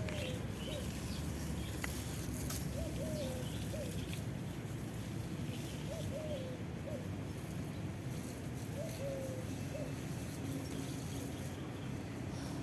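Low-pitched bird calls in short phrases of two or three notes, repeated every few seconds, over a steady low background rumble.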